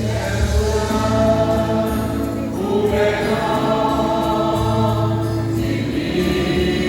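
Vocal group singing a Christian worship song in harmony, holding long notes over a steady instrumental backing.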